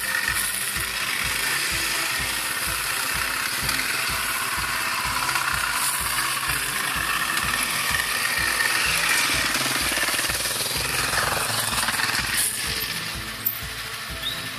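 Dirt bike engine revving as the bike rides up and past, its pitch rising and then falling about eleven seconds in, over a steady low pulsing about three times a second.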